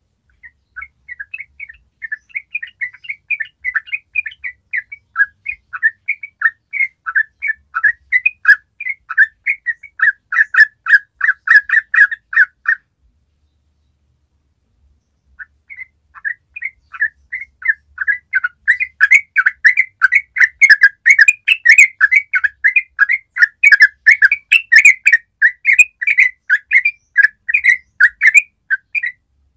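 Yellow-vented bulbul singing a long run of quick chattering notes, growing louder as it goes. It breaks off for about two and a half seconds just before the middle, then starts again.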